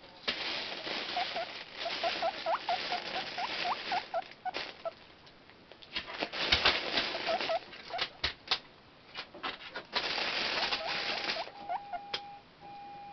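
Guinea pigs wheeking excitedly in a quick series of short rising squeaks, loud enough to be almost like a whistle, over the rustling of their food bag being moved. Near the end come three steady electronic beeps from a scanner.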